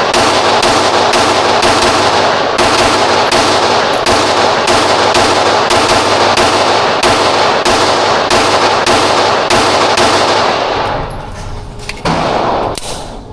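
A pistol fired in a long, fast, evenly paced string of shots, about three a second, with the reports running together, then stopping near the end.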